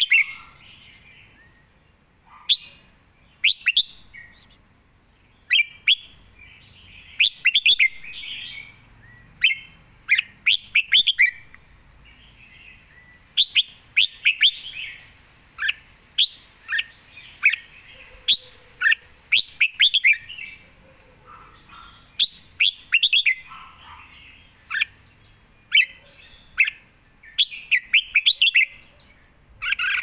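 Red-whiskered bulbul singing: short, bright, whistled phrases of quick notes, repeated every second or two.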